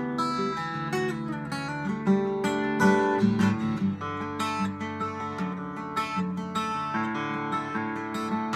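Solo acoustic guitar played fingerstyle: a stream of plucked melody notes over ringing bass notes.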